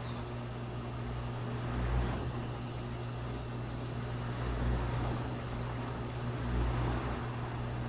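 Steady low mechanical hum over a background hiss, swelling slightly a few times.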